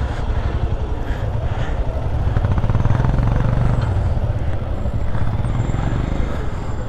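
A small 150cc motorcycle engine running on the move, with a rapid, even firing rattle that gets a little louder in the middle.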